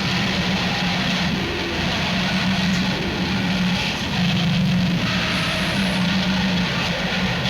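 A lion's sound, digitally altered and distorted until it sounds like rubbish being crushed by some motorised machine: a steady, noisy rumble with a low hum that drops out and returns several times.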